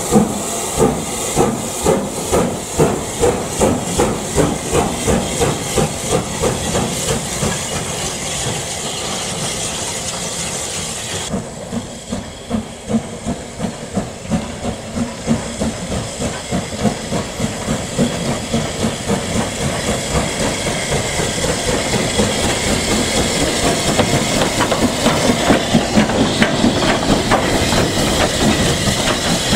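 Southern Railway Maunsell S15 class 4-6-0 steam locomotive No. 847 moving slowly: regular exhaust chuffs, about one and a half a second, over a steady hiss of steam.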